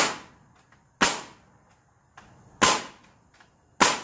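Nails being driven into timber framing: four sharp, loud cracks at uneven intervals of about a second, each ringing out briefly.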